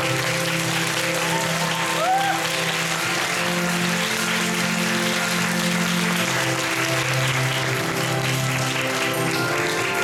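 Theatre audience applauding steadily during a curtain call, with music playing under the clapping.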